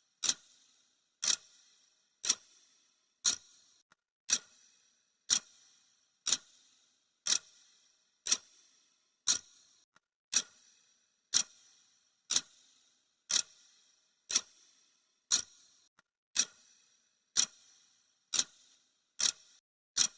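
Clock ticking sound effect: a sharp, high tick once a second, steady and even, marking off the seconds of a countdown timer.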